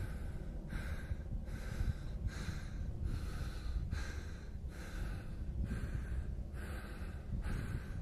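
Footsteps crunching on a dirt hiking trail at a steady walking pace, just under two steps a second, over a steady low rumble.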